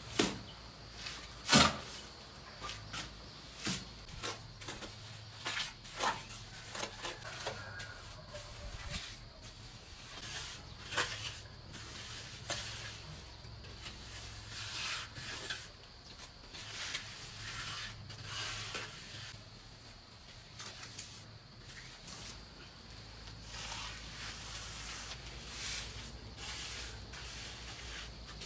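Steel shovel scraping on a concrete floor and dropping lumps of wet cement mortar, with two sharp knocks in the first couple of seconds, then a steel hand float scraping and smoothing the wet mortar screed in repeated short strokes.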